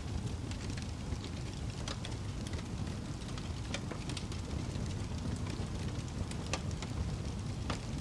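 Wood fire burning in a fireplace: a steady low rush of flames with scattered sharp crackles and pops, about one or two a second.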